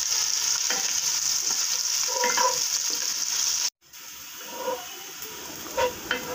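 Sliced onions sizzling in hot oil in a non-stick pot, stirred with a wooden spatula. The loud sizzle cuts off abruptly about three-quarters of the way through. After that comes quieter frying with light spatula scrapes as the onions brown.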